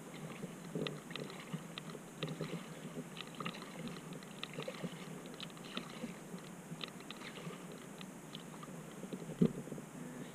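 Water lapping and dripping against a kayak, a run of small irregular clicks and splashes over a soft steady hiss, with one sharper knock near the end.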